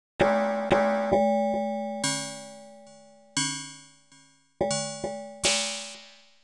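Synthesized MIDI piano striking huge dense note clusters (dark MIDI): about nine loud, clangy chord hits, each dying away, with a short gap midway and the last one near the end.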